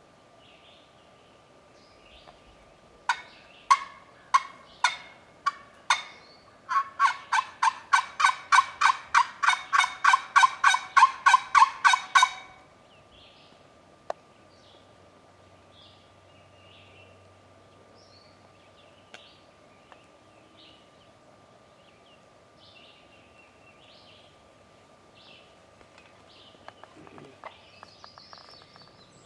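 Turkey yelping: six spaced yelps, then a quick unbroken run of about twenty yelps lasting some five seconds. Faint small-bird chirps carry on around it.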